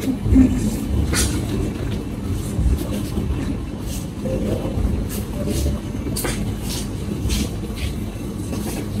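Steady low rumble of busy surroundings, with a handful of short sharp knocks scattered irregularly through it.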